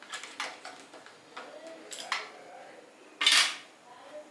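Pencils, a ruler and other small stationery clicking and knocking against a pencil box as they are handled and set back in place, with a louder brief rattle a little after three seconds in.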